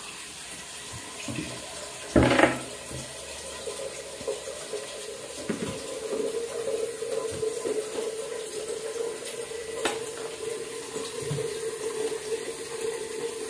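Water running from a tap into a kitchen sink, with a steady tone that sets in just after a single knock about two seconds in.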